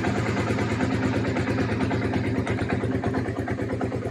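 Suzuki SV650's V-twin engine idling steadily at low revs.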